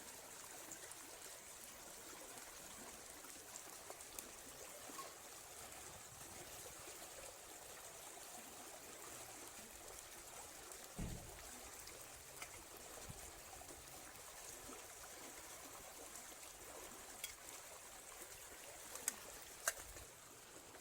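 Faint, steady trickle of running water, with a few sharp clicks near the end and a single low thump about halfway through.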